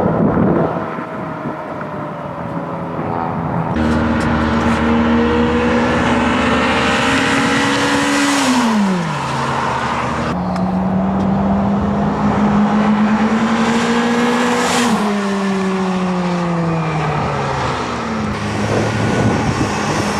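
Toyota Celica GT-S's 2ZZ-GE four-cylinder through a TRD muffler on a hard acceleration run: the pitch climbs through a gear, drops sharply at a shift, climbs again and then falls away as the throttle is lifted. The exhaust stays fairly quiet at low revs and is heard properly only past about 4,000 rpm and into VVTL-i lift.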